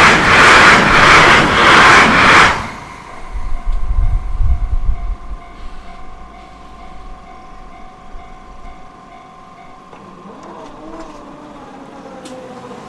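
Akita Shinkansen E6 series train passing a level crossing close by: a loud rush with rhythmic wheel beats about twice a second that cuts off suddenly under three seconds in as the last car clears. A brief low rumble of wind follows in its wake, then the crossing's warning bell rings faintly with an even pulsing tone.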